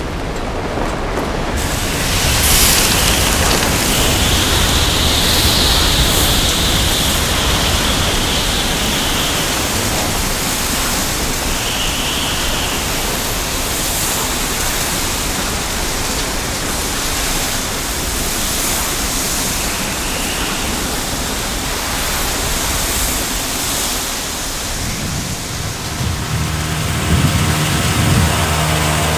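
Sandstorm wind blowing hard: a steady loud rush of wind-driven sand, with a high whistle that rises and falls from a few seconds in and comes back briefly later. Near the end a low, steady drone of several tones comes in under the wind.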